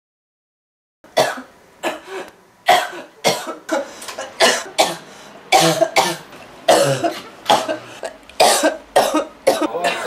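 A person coughing over and over: a long run of short, sharp coughs, about one or two a second, starting about a second in.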